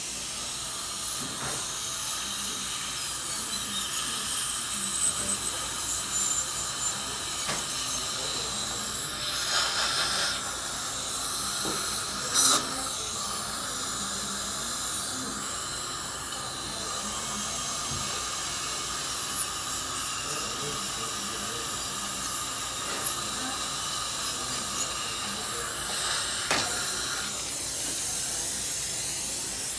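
Dental equipment running steadily: the hiss of suction and an air-driven dental drill, with a faint steady whine and a few short clicks of instruments on teeth or the tray.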